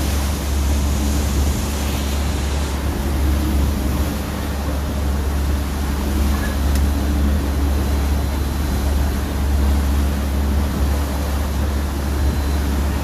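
Water taxi's engine running steadily under way, a loud low drone with the rush of churning wake water behind the stern.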